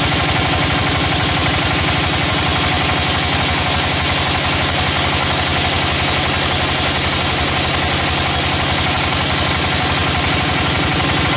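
An engine running at a steady speed with a rapid, even firing pulse, with a steady hiss over it.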